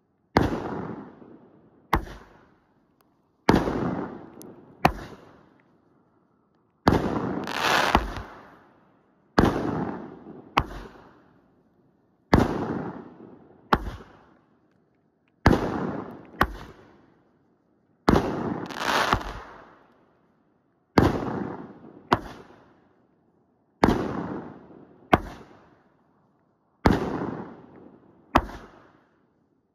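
Aerial fireworks going off in quick succession: about twenty sharp bangs, roughly one every second and a half, each trailing off with a crackling tail.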